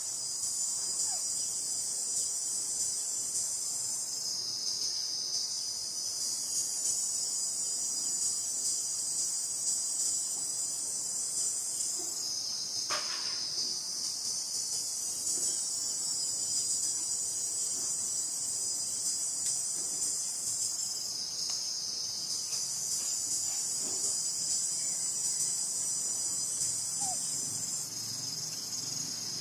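Steady high-pitched insect chorus that dips briefly three times, with one short falling chirp about halfway through.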